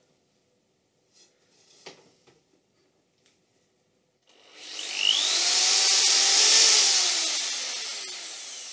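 Corded electric drill boring a hole through a wooden board: about four seconds in the motor spins up with a rising whine and runs loud, then winds down with falling pitch near the end. Before that only faint handling sounds.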